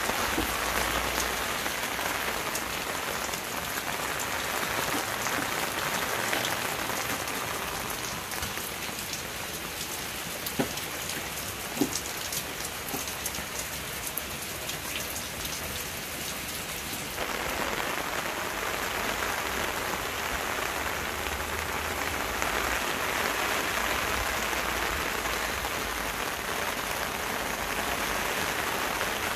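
Steady rain falling on leaves, soil and plant pots: a continuous patter of many small droplet taps, with two sharper taps near the middle. The rain noise steps up suddenly a little past halfway.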